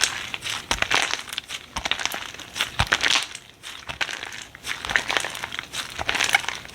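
Slime being squeezed and pressed by hand, giving a dense, irregular run of small pops and clicks that comes in surges, with a brief lull around the middle.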